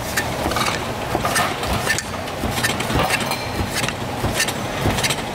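Busy noodle-shop ambience: a steady background din with many short, sharp clicks and knocks scattered throughout.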